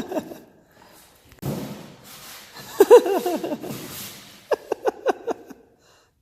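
A man's voice making a wordless sound, then a short quick run of laughter, with a rush of handling noise before it.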